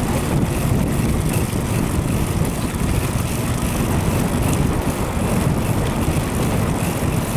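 Wind buffeting the microphone on a moving bicycle, a steady low rumble from riding into a headwind.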